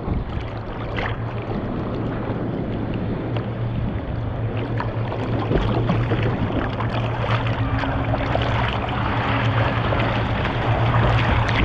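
Ocean water sloshing and splashing against a waterproof GoPro Hero7 camera held at the surface, with a steady low rumble underneath, growing a little louder toward the end.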